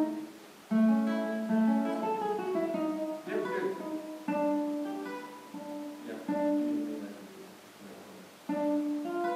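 Two nylon-string classical guitars playing a duet in phrases of plucked notes. There is a short break just after the start. The playing grows quieter towards the end, then picks up louder again.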